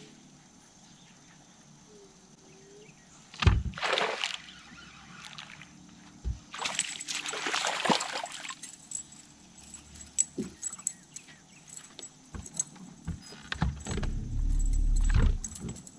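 Water splashing at the surface beside a boat as a hooked fish thrashes, with a sudden thump and splash about three and a half seconds in and a longer splash around seven to eight seconds in. A low rumble follows near the end.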